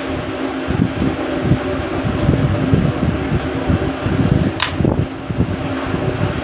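A fan running steadily, with low rumbling buffets underneath. About four and a half seconds in there is a single light knock as a screwdriver is set down on the wooden table.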